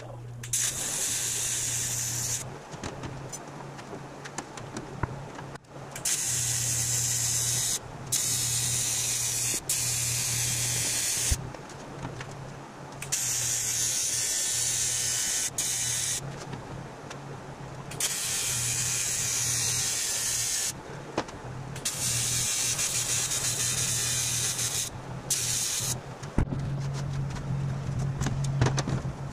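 TIG welding arc on 0.063-inch 3003 aluminum sheet, a steady buzzing hiss with a low hum, in several runs of a few seconds each that stop and start again with short pauses between as the seams of a gas tank are welded.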